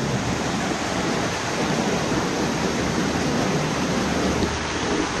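A heavy flow of water gushing out of a tunnel opening and splashing down right by the microphone: a loud, steady rush.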